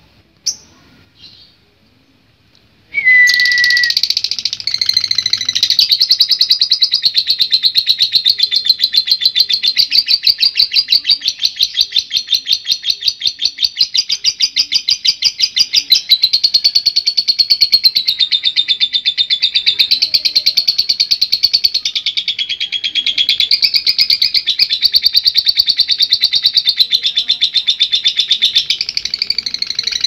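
Fischer's lovebird giving a few short chirps, then from about three seconds in breaking into a long 'ngekek': a rapid, high chattering trill of fast-repeated notes that goes on for over 25 seconds without a break.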